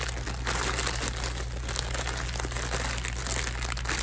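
Clear plastic packaging bag crinkling and rustling as it is handled.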